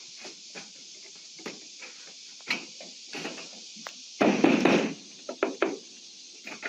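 Thin sheet-metal roofing panel being lifted and handled: scattered knocks and taps, with a louder rattling stretch lasting under a second about four seconds in.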